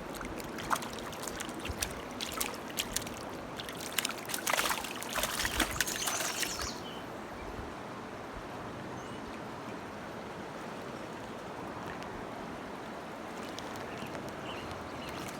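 Water splashing and slapping in quick irregular bursts, loudest about four to six seconds in, as a hooked fish is brought in at the surface. The splashing stops about six and a half seconds in, leaving a steady hiss of water.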